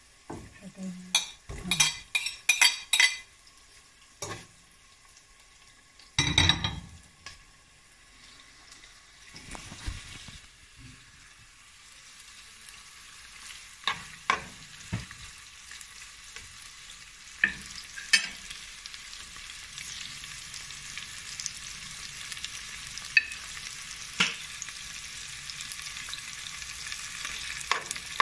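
Boiled shredded chicken frying with onions and garlic in a granite-coated nonstick pan. A sizzle builds from about nine seconds in, and a metal spoon stirs and clicks against the pan now and then. In the first three seconds comes a quick run of clattering knocks, and about six seconds in a single louder knock.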